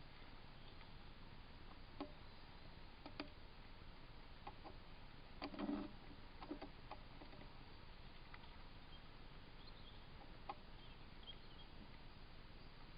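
Quiet woodland ambience picked up by a wildlife trail camera: a steady faint hiss with a few scattered sharp clicks and a brief rustle about five and a half seconds in.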